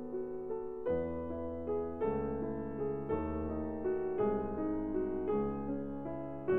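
Background piano music, with a new chord about once a second.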